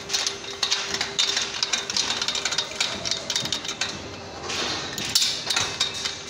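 Steel scaffolding couplers clinking and knocking against each other and the steel tube as their bolts are worked by hand and with a spanner: a quick, irregular run of metal clicks and knocks.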